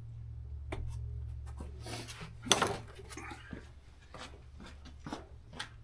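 Hands working under a loosened car seat: scattered clicks and rustles of plastic and metal, with one loud clatter about two and a half seconds in, over a steady low hum.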